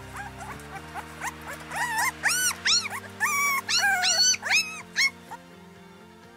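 Puppies whining and yelping in a rapid string of short, high cries that rise and fall, stopping about five seconds in. Background music runs underneath and fades out after the cries end.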